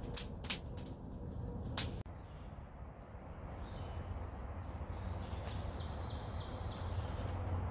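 Wood fire crackling with a few sharp pops in the first two seconds. Then, after an abrupt change, birds chirping in a forest over a steady low background rumble.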